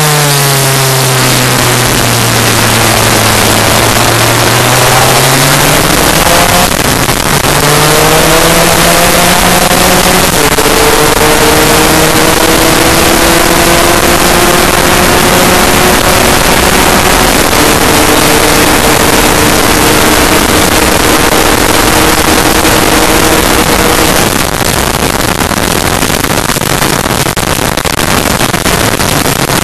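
Two-stroke single-cylinder engine of a Lambretta race scooter accelerating hard, its pitch climbing and then dropping at each of about three gear changes, over heavy wind rush on the onboard microphone. Near the end the engine note falls away and the wind rush is left.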